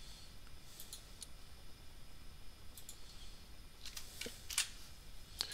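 A few faint clicks of a computer mouse, spaced irregularly, the loudest about four and a half seconds in, over quiet room tone.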